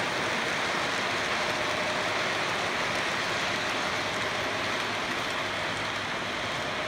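O scale model passenger train running along the layout's track: a steady, even rushing noise of wheels rolling on the rails.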